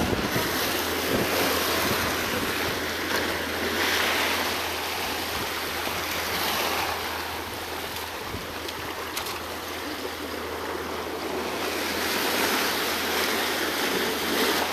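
Sea waves surging in and washing over a rock platform and into a narrow gully between boulders, the rushing water swelling and easing in surges every few seconds.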